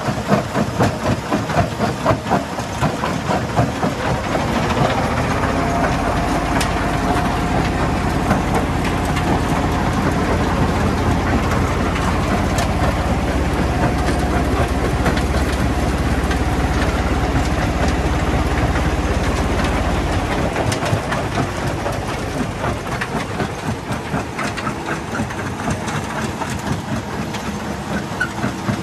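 Small stone jaw crusher running, its jaw clattering in a rapid, even rhythm as hand-fed rock is crushed. A heavier low rumble comes in about four seconds in and eases off after about twenty seconds, then the clatter comes back to the fore.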